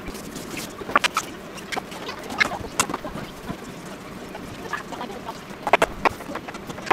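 Irregular light knocks and clicks of food prep: a plastic cutting board set down on a wooden counter, with button mushrooms placed, handled and trimmed on it. A cluster of louder knocks comes near the end.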